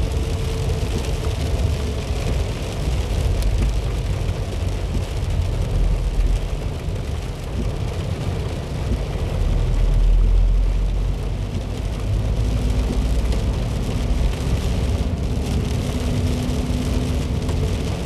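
Heavy rain pelting a moving car while its engine and tyres run on the wet road, a steady rushing hiss over a low rumble that swells for a moment about halfway through.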